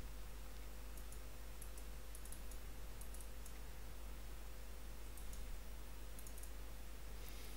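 Faint computer mouse clicks, scattered irregularly, over a low steady electrical hum.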